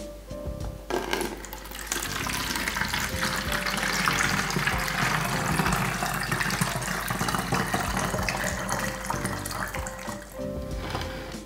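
Water poured from a plastic measuring jug through a funnel into a plastic spray bottle, filling it halfway: a steady splashing pour that starts about a second in and stops near the end. Background music plays underneath.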